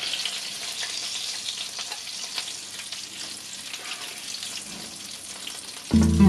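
Hot oil sizzling and crackling in a frying pan around battered, meat-stuffed eggplant slices, with a few faint clicks from metal spatula-tongs. Music comes in loudly near the end.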